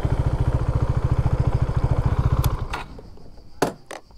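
KTM Duke 390's single-cylinder engine running at low revs with an even pulse, then cut off suddenly about two and a half seconds in. A few sharp clicks follow.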